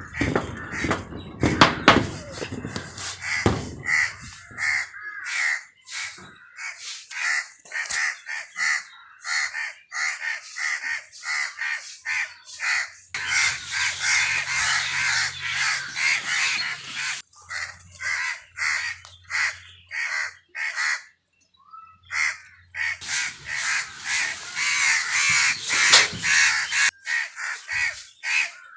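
Crows cawing over and over in quick, harsh calls, often about two a second, briefly falling silent around three quarters of the way through.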